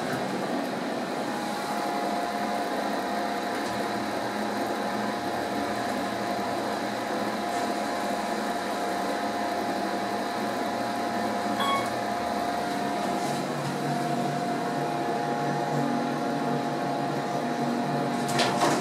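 Otis hydraulic elevator car in motion, heard from inside the car: a steady mechanical hum with a steady whine running under it. A short single ding sounds about twelve seconds in, and a few clicks come near the end.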